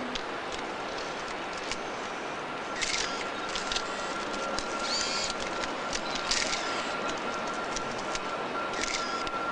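Rhaetian Railway Ge 6/6 I electric locomotive and its Pullman coaches rolling past: a steady hiss with a few scattered sharp clicks, and a thin steady high whine that comes in a few seconds in.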